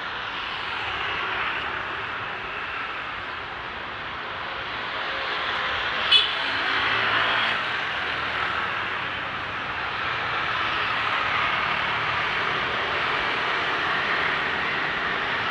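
Steady street traffic noise from cars and motorbikes driving past, swelling and easing as vehicles go by. About six seconds in there is one sharp, short metallic click.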